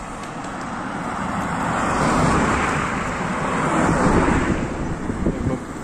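A pickup truck driving past on the road: its engine and tyre noise swells over about two seconds, stays loud, then fades away near the end.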